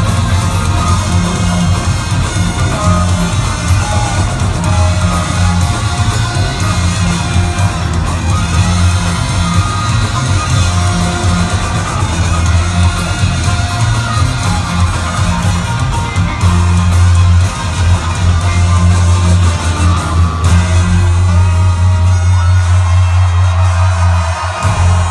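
Rock band playing live in an arena, with a heavy, steady bass line and guitar. The bass drops out suddenly just before the end.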